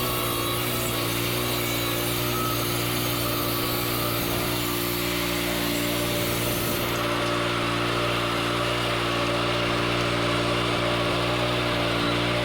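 Wood-Mizer LT40 Wide bandsaw mill running steadily, its engine humming under the hiss of the band blade sawing through a dense pecan log. The blade is dulling on the hard wood.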